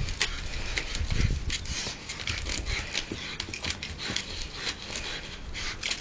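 Dogs panting and sniffing close by as they nose at a tennis ball, short hissy breaths several times a second, with a brief low rumble about a second in.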